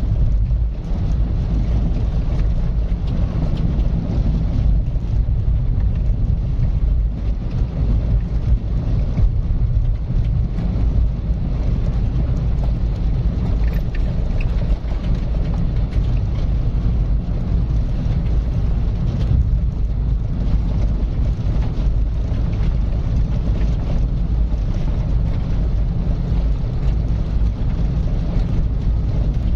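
A car driving at a steady pace, with an even low rumble of engine and tyre noise that holds steady throughout.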